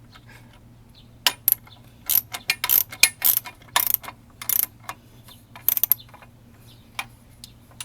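Socket ratchet clicking in short, irregular runs of strokes as a 17 mm bolt is run in and snugged up.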